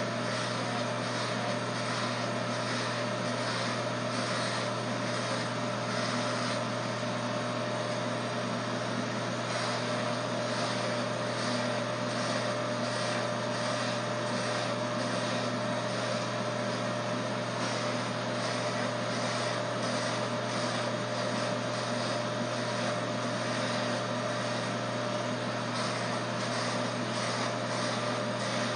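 Corded electric hair clippers running with a steady buzz while cutting hair close to the scalp.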